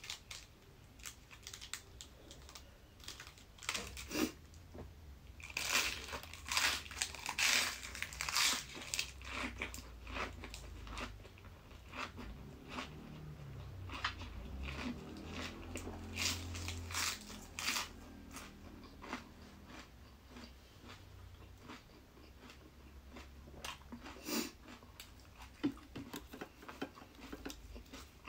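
Close-up crunching and chewing of a cabbage-leaf wrap of spicy pounded cucumber salad: crisp bites and wet chewing, densest in a run of loud crunches about five to nine seconds in, with more bites near the end.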